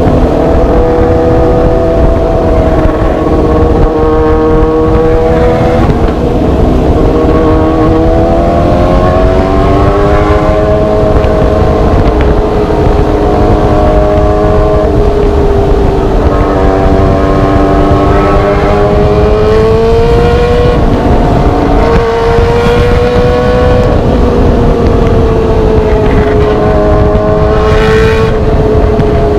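Motorcycle engine with an aftermarket semi-straight-through exhaust running under way, its pitch rising and falling slowly with the throttle, over heavy wind rush.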